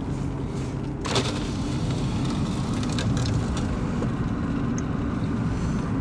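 Steady engine and tyre noise heard from inside a car's cabin while driving on a snow-covered road, with a brief knock about a second in.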